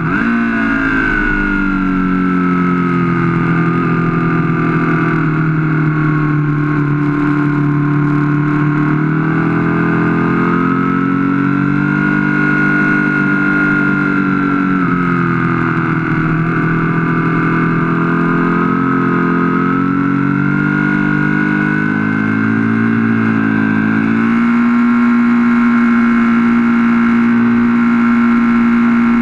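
Aprilia Falco's V-twin engine heard from a camera mounted on the bike at speed, its note slowly rising and falling as the rider works the throttle through the bends, with rushing wind. In the last few seconds the engine holds one steady pitch.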